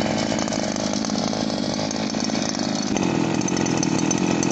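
Gladiador PRO two-stroke brushcutter engine running steadily at working speed. About three seconds in, its note steps abruptly higher.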